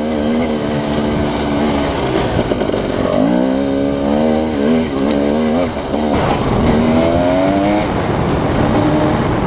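Husqvarna 300 two-stroke dirt bike engine under way on a dirt trail. The revs rise and fall with the throttle, climbing in pitch about three seconds in and again about six and a half seconds in.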